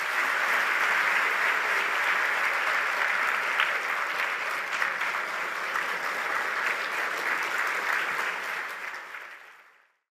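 Audience applauding, a dense, steady clapping that fades out near the end.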